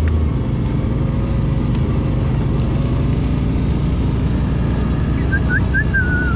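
ATV engine running steadily while the quad is under way, with a brief wavering whistle-like tone near the end.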